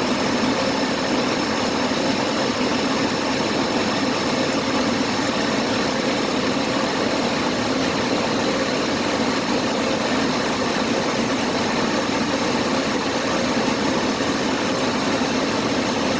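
Car engine idling steadily, with a thin steady high whine over it. The alternator is failing and no longer charging: its output is sagging toward 9 volts.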